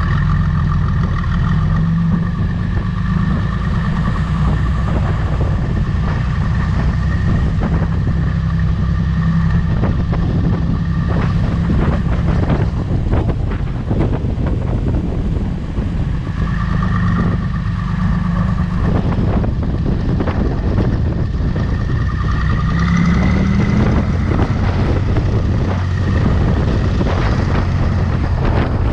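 John Deere 3140 tractor's six-cylinder diesel engine running steadily under way. It picks up revs with a rising note a little past two-thirds of the way through. A run of knocks and rattles comes in the middle stretch.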